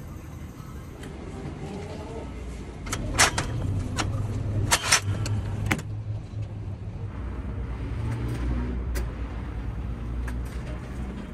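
Vending machines in operation: a steady low motor hum with several sharp mechanical clicks and clunks, bunched around the middle and once more near the end.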